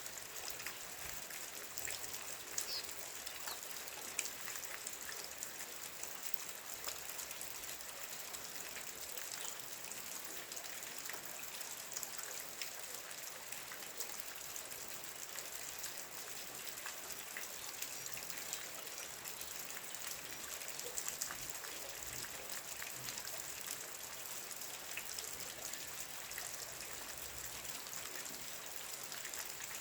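Steady rain falling: a dense patter of separate drops over an even hiss, holding at one level throughout.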